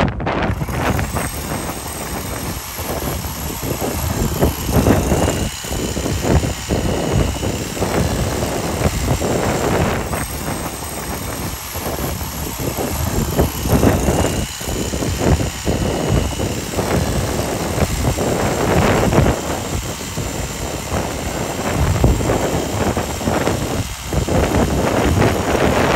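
Handheld power tool running as it cuts into a bull's horn; its motor whine dips and recovers every few seconds under load.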